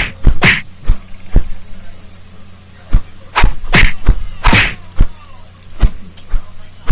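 Siamese kitten batting and pouncing at a hanging toy mouse inside a fleece cat bed: an irregular string of sharp knocks and thumps, about a dozen, mixed with short rustling swishes.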